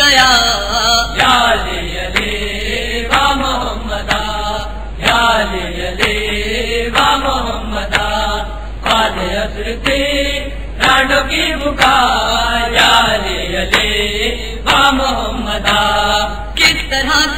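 A man's voice chanting a noha, an Urdu Shia lament, into a microphone in long sung phrases.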